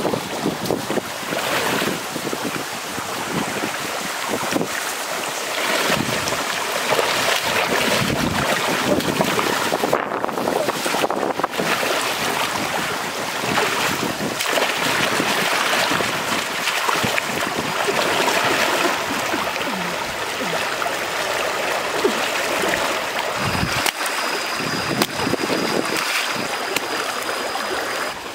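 Shallow stream rushing over rocks, with irregular splashing as a person wades and gropes in the water by hand.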